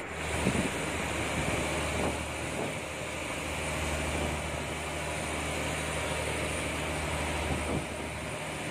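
A fishing boat's engine runs with a steady low drone, with a few short knocks of the aluminium cooking pot and its lid being handled.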